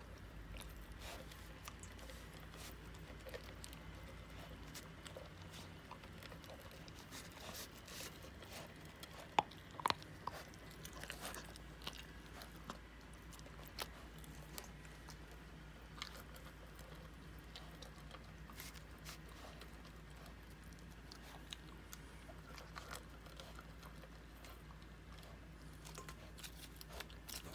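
Small dog chewing and crunching dry kibble from a stainless steel bowl: faint, irregular crunches and clicks, with two louder clicks about ten seconds in.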